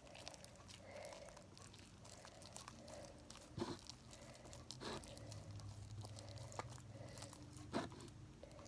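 Homemade blue glue slime being kneaded and pulled by hand while detergent is worked in, giving faint sticky crackles with a few louder clicks spread through.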